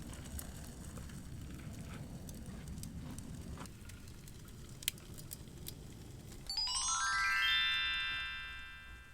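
A rising chime glissando: a quick upward cascade of bell-like tones about six and a half seconds in, which rings on and fades away. Before it there is only a low background hiss and a single sharp click.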